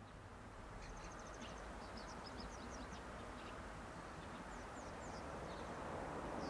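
Small birds chirping in quick, high twittering runs, over a low rumble that slowly grows louder toward the end.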